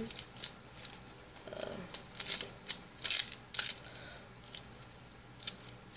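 Black tape being pulled and torn off a cardboard package box: a run of short, irregular ripping and crinkling noises.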